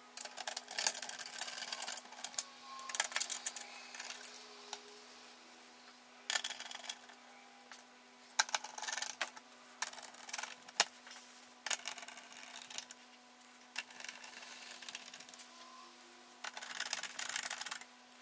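Screwdriver driving small screws into the metal chassis of an all-in-one PC: bursts of quick metallic clicking and scraping, about five of them with pauses between, over a faint steady hum.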